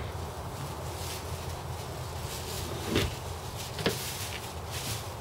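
Two short knocks about a second apart, around three seconds in, as a boat helm seat is handled on its pedestal, with a few fainter ticks, over a steady low rumble.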